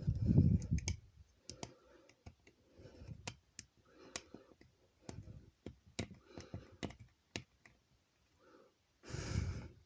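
Small plastic model-kit parts clicking and tapping against each other as tiny wheels are handled and pressed onto their posts, in irregular sharp clicks, with duller handling noise at the start and again near the end.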